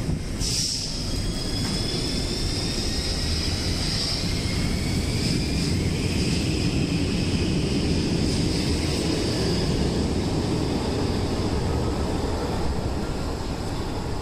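Helsinki metro train pulling out of an underground station: its electric traction motors start up with a sudden whine about half a second in, and the whine rises in pitch as the train gathers speed. Under it runs a steady low rumble of the train and the wheels on the track, and the whine fades out in the second half.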